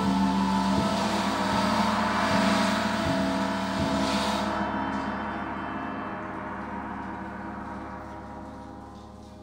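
Live symphony orchestra holding a sustained chord over ringing, gong-like metal percussion, with soft low strokes about every three-quarters of a second. The high shimmer stops about four and a half seconds in, and the chord then slowly dies away.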